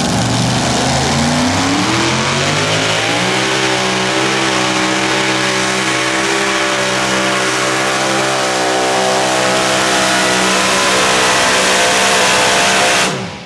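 Mini modified pulling tractor's engine under full throttle, pulling the sled: the revs climb over the first three seconds or so, hold steady and high, then cut off abruptly near the end as the pull ends.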